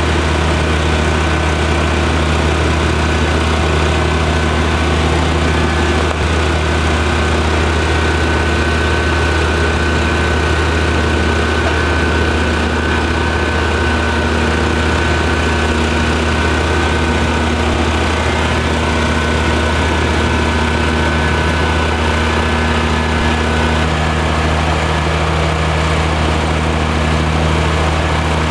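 Large engine of the barge's work equipment running at a steady speed: a deep, even hum with a higher whine over it.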